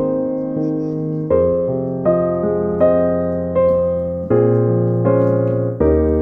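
Background piano music: slow, even chords, a new one struck about every second and left to ring and fade.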